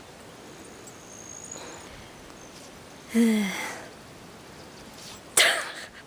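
Two sneezes about two seconds apart. The first carries a short, falling voiced snort; the second is a sharp, breathy burst.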